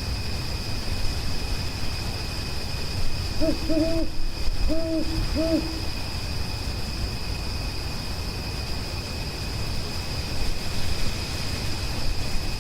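An owl hooting four short notes near the middle, each rising and falling in pitch. Behind it runs a steady high-pitched whine over a low rumbling noise.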